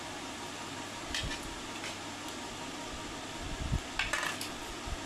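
A steel serving spoon clinking and scraping against stainless steel plates as egg curry is dished out: a couple of short clinks about a second in and a louder cluster about four seconds in, over a steady fan hum.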